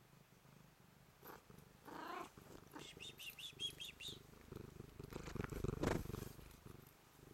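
Blue-eyed white Manx cat purring steadily in greeting, close to the microphone. Scratchy rustling and bumps come from its face and fur rubbing against the camera, loudest about six seconds in.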